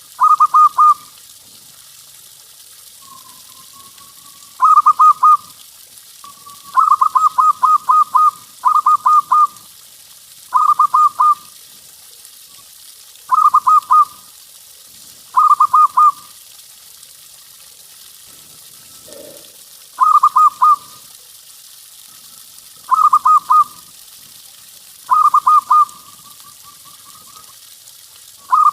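Zebra dove (perkutut) cooing: short phrases of rapid staccato notes, repeated every couple of seconds, with a few drawn-out gliding notes, over a steady hiss.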